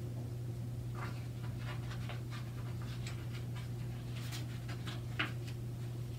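Soft paper rustling from a picture book's page being handled and turned, in short scratchy strokes, with the loudest rustle a little past four seconds as the page flips over. A steady low hum runs underneath.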